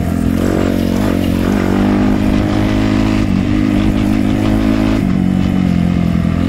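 Suzuki dirt bike engine running under way. Its pitch rises and falls with the throttle, then holds steady, dips briefly a little after three seconds and steps down about five seconds in.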